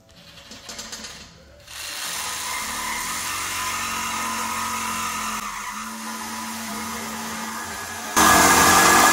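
Cordless reciprocating saw cutting through a steel exhaust pipe to take out the factory resonator. After a few brief stop-start bursts the saw runs steadily through the cut, and it gets much louder about eight seconds in.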